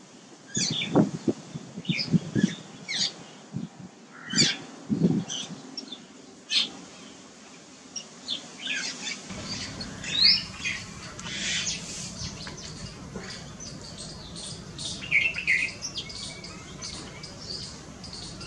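Jungle babblers calling: short, harsh chirps and squawks repeated irregularly. A few low thumps come in the first five seconds, and a steady low hum sets in about halfway through.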